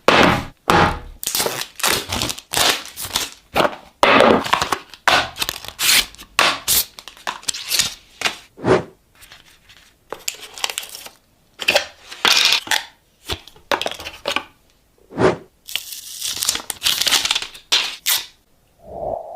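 Smartphone packaging being handled and opened: plastic film tearing and crinkling, with cardboard box parts clicking and scraping in quick separate strokes. Near the end a short ringing tone begins and fades.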